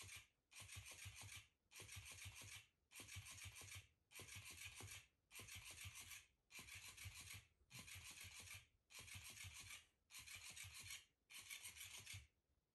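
Electric flopping fish toy wriggling on a blanket. Its motor runs in bursts of just under a second, about one a second, with a rapid low thudding of the tail against the floor in each burst. The bursts stop near the end.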